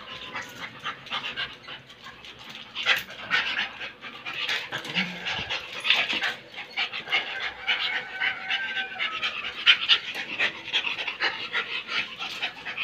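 An askal (Filipino mixed-breed street dog) panting hard and fast during rough play, with many quick clicks and scuffs mixed in.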